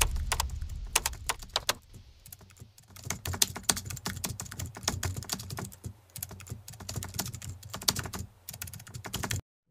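Typing sound effect: quick, irregular key clicks that stop shortly before the end.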